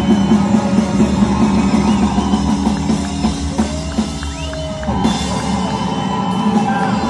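Live rockabilly band playing loud, amplified rock music, led by drum kit and electric guitar.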